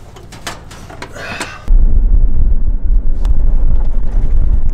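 A few metallic clicks and clatters from an aluminium dog-box door being worked. Then, about two seconds in, a sudden loud, steady low rumble of a truck driving, with road and wind noise.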